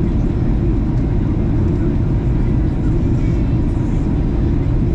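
Steady low rumble of an airliner in flight, engines and airflow heard inside the passenger cabin.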